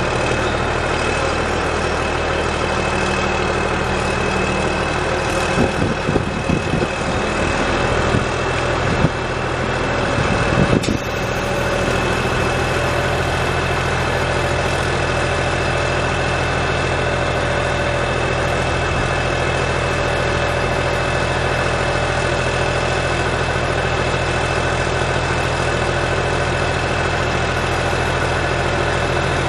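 CASE W20C wheel loader's diesel engine running steadily at idle, with a steady high whine over it while the loader arm and bucket are worked through the hydraulics. About six to eleven seconds in, a rougher, uneven noise rises over the engine for a few seconds.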